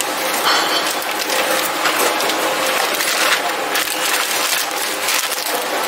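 Steady, dense mechanical clatter and rattling in a brake-cylinder workshop.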